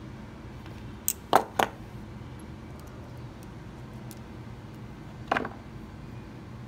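Metal hand tools, long-nose pliers and a wire crimping tool, clicking and knocking as they are handled and laid down: a click and two knocks about a second in, then one more knock near the end, over a steady low hum.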